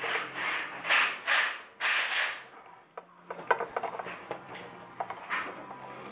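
Razor blade held in vise grips scraping old cured silicone off aquarium glass: about five quick rasping strokes, then a run of light clicks and ticks as the blade catches and taps on the glass.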